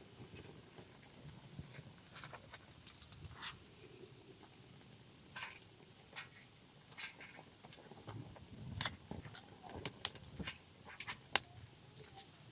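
Scattered light clicks and knocks at an uneven pace, with a few sharper taps about nine to eleven seconds in.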